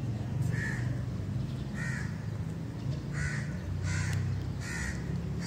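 A crow cawing about five times in a row, over a low steady hum.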